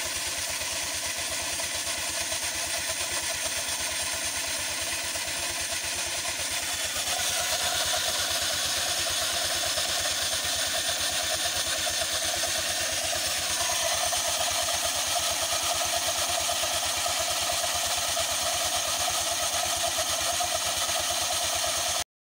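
Honda Click 125i scooter's single-cylinder engine running with the CVT cover off, the belt and pulleys of the transmission turning with a steady noise that is not normal; it gets louder about seven seconds in. The owner traces the noise to dirty flyball roller weights.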